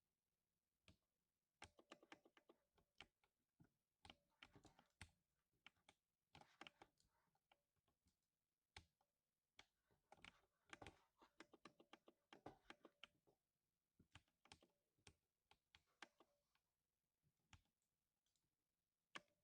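Typing on a lubed 60% mechanical keyboard: quiet, deep thocking keystrokes in uneven flurries broken by short pauses.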